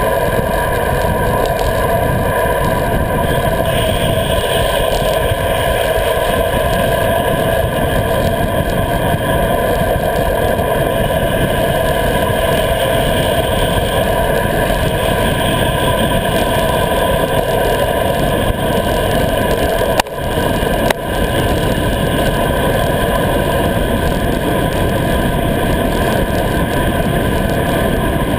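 Steady rush of wind over a bicycle-mounted action camera's microphone while riding along a tarmac road, mixed with tyre and road rumble. The noise holds level throughout, with two brief dips about twenty seconds in.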